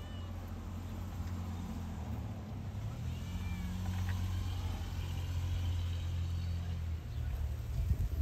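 Kittens meowing faintly a few times over a steady low rumble, with a low bump near the end.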